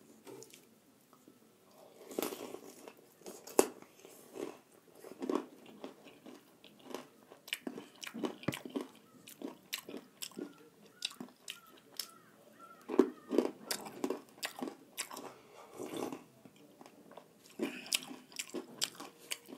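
Close-up eating sounds of fried snack food: irregular crisp crunching bites and chewing, with a few sharper crunches standing out.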